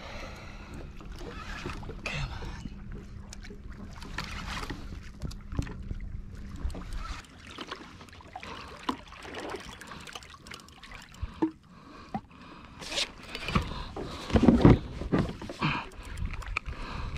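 Knocks and clunks on a Hobie Revolution 13 kayak and its gear, with water moving around the hull. A steady low hum for the first several seconds drops away, and the loudest thumps come in a cluster near the end.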